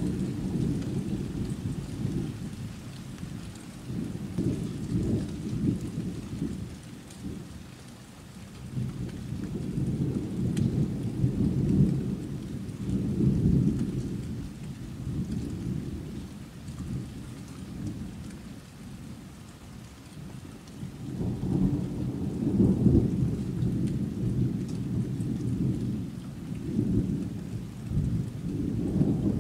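Rolling thunder rumbling low in several long swells, each building and fading over a few seconds, with the loudest roll near the end, over a steady hiss of rain.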